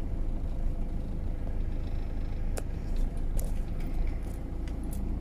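Car moving slowly over a dirt road, heard from inside the cabin: a steady low engine and tyre rumble, with a couple of faint clicks about halfway through.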